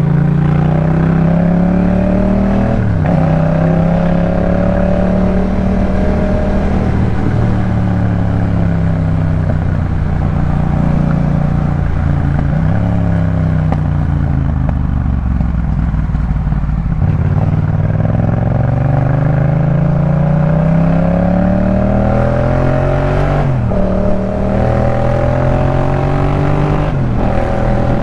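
2018 Yamaha MT-07's parallel-twin engine breathing through a Jeskap K4 full exhaust, ridden under acceleration: the pitch climbs and drops sharply at each of several upshifts. About halfway through, the engine note falls away as the bike slows, then climbs through the gears again.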